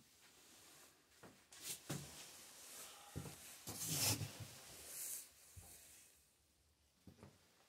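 Rustling and soft knocks of a person moving close to the microphone, clothing brushing past, loudest about four seconds in.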